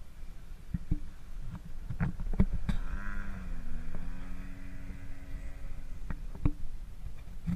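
A radio-control model airplane's motor droning as it flies past, its pitch dropping partway through the pass before it fades. Scattered sharp knocks on and off.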